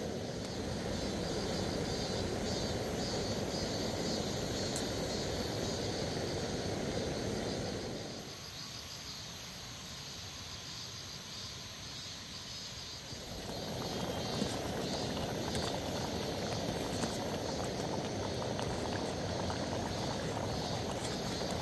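Insects, crickets by the sound of them, chirping steadily over a low, even rushing noise; the rushing drops away for about five seconds near the middle, then returns.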